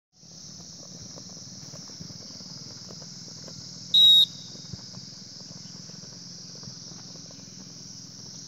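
A steady, high-pitched insect chorus, broken about four seconds in by one short, loud whistle blast.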